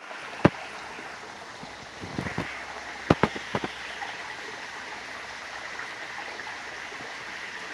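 Steady running water from a garden koi pond. A few sharp clicks and knocks come over the first few seconds.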